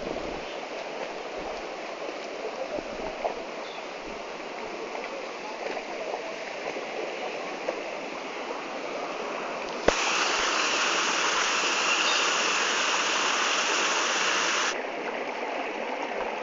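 Mountain stream water running steadily. About ten seconds in there is a sharp click, and the rushing water is then louder for about five seconds before dropping back suddenly.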